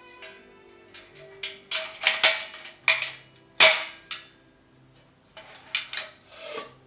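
Metal clinks and clanks from a silver-plated Fenton Brothers biscuit warmer as its hinged shell-shaped bowls are swung shut and handled, knocking against the frame. About a dozen sharp knocks, each ringing briefly, the loudest a little past halfway.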